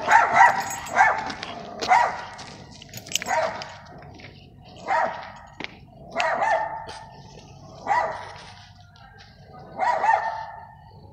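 A dog barking in short, high yips, one or two at a time, every second or two, loudest at the start.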